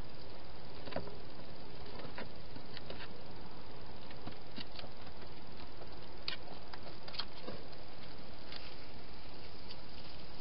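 A wild hedgehog feeding at bowls inside a plastic feeding box: scattered, irregular small clicks and crunches over a steady hiss.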